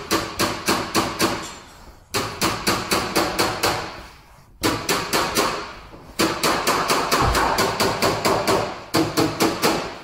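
Quick runs of light hammer taps on the sheet metal of a Honda CR-V's front fender, several taps a second with short pauses between runs. This is tapping down during paintless dent repair, to level the pushed-up dent with the panel.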